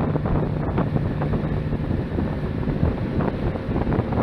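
Motorboat engine running with a steady low drone, under heavy wind buffeting on the microphone as the boat travels across the water.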